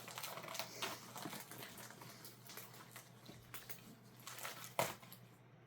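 Rustling and handling of packaging and clothes, with scattered small clicks and one sharper knock nearly five seconds in.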